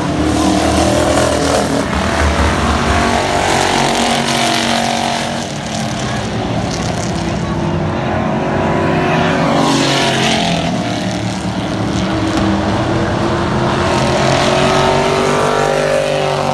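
Race car engines running laps around a short oval track, their pitch rising and falling as the cars go round. About ten seconds in, one car sweeps past close by, its pitch dropping as it goes.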